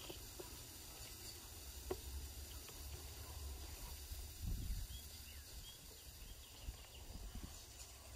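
Faint lakeshore dawn ambience: a few faint bird chirps over a steady low rumble, with a single low thump about halfway.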